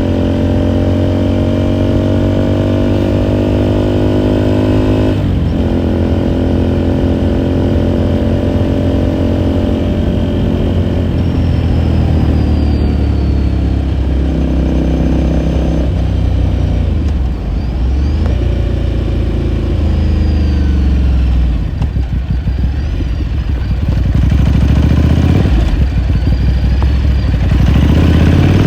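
2018 Ducati Scrambler Sixty2's air-cooled 399 cc V-twin running under way. The engine note climbs gently, then drops sharply about five seconds in at an upshift. It holds fairly steady, dips a couple of times as the throttle is eased, and rises steeply again near the end under acceleration.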